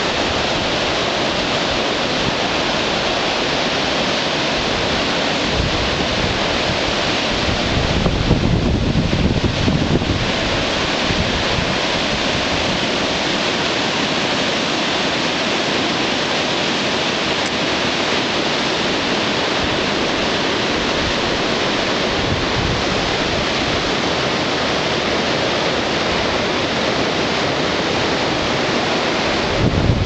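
Fast, turbulent river rapids rushing steadily, with wind buffeting the microphone, heaviest about eight to ten seconds in.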